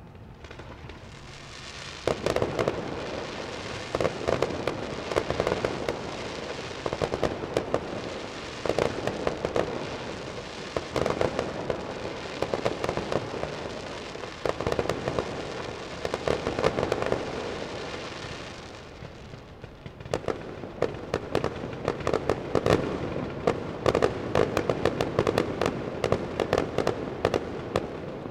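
Fireworks display: rapid, dense volleys of bangs and crackling that start about two seconds in, ease off briefly about two-thirds of the way through, then pick up again.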